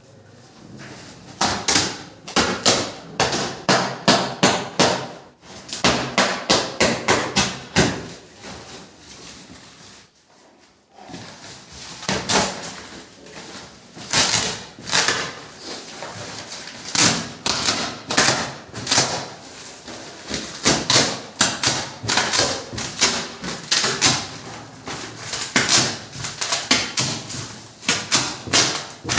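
Rapid runs of sharp knocks and taps, several a second, broken by a short lull about ten seconds in.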